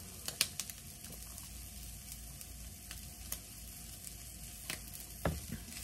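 Vegetables and sausage sizzling in a frying pan: a steady low sizzle with a few scattered crackles and pops.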